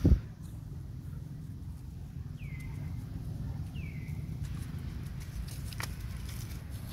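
Two short high chirps, each falling in pitch, about a second and a half apart, over a steady low rumble; a loud thump right at the start.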